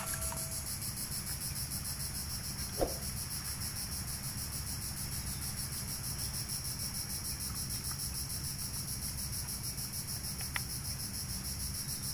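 Steady, high, rapidly pulsing insect chorus, with a low rumble beneath and a single short knock about three seconds in.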